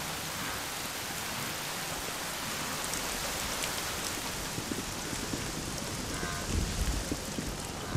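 Steady rain falling, an even wash of noise, with a brief low rumble near the end.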